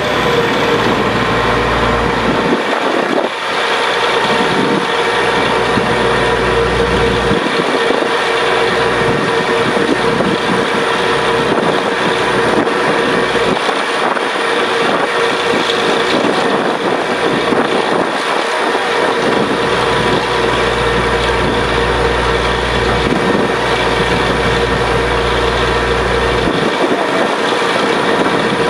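Borewell drilling rig running loud and steady with a constant mechanical drone, its deep low rumble dropping away for a few seconds at a time, several times.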